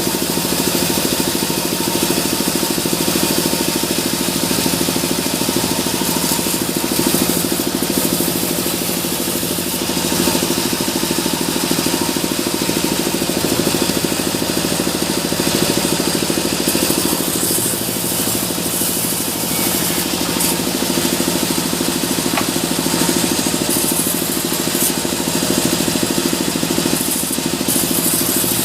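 Sawmill machinery running steadily, a continuous engine-like drone.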